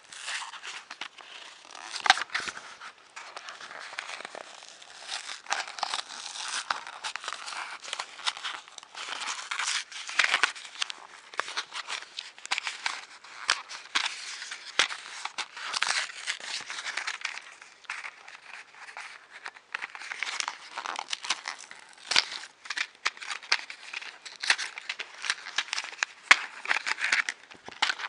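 Plastic packaging crinkling and rustling as fingers work it, a continuous crackle with many sharp clicks.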